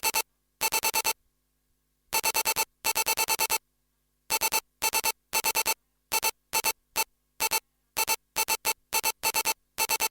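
Unidentified electromagnetic signal: a harsh electronic buzz that cuts on and off abruptly in irregular bursts. Some bursts are short blips and others last about a second, and each is made of rapid pulses at roughly ten a second, with silence between bursts.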